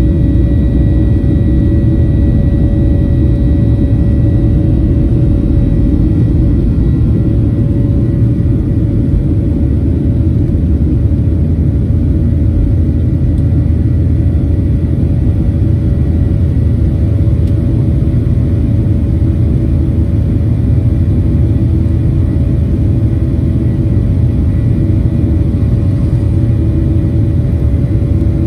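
Boeing 737 jet engines at takeoff thrust, heard from the cabin over the wing: a loud, steady rumble with a thin steady whine over it, through the takeoff roll, liftoff and initial climb.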